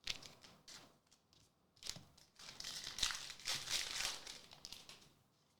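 Foil Pokémon booster pack wrapper being torn open and crinkled in the hands. A few short handling clicks come first, and the loudest crinkling runs from about two and a half to five seconds in.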